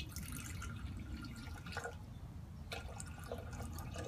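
Hydrogen peroxide poured from a plastic bottle into a glass beaker: a splashing trickle of liquid that breaks off briefly about two seconds in, then resumes.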